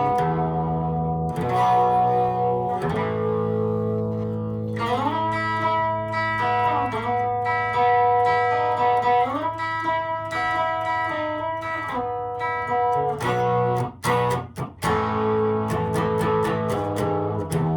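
Electric guitar playing sustained notes and chords, with notes sliding up and down in pitch a few times around the middle.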